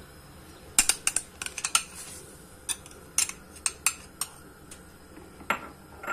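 A utensil clinking against kitchenware in a run of sharp clinks. They come thick and fast about a second in, then more spaced out, with a couple more near the end.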